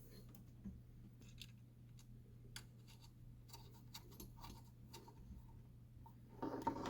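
Faint scattered ticks and rustles of wires and a small connector being handled, over a steady low hum, with a louder clatter near the end.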